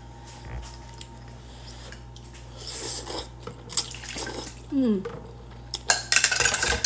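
Udon noodles being slurped up from chopsticks in a few wet, sucking bursts, with small clicks of utensils against the bowl.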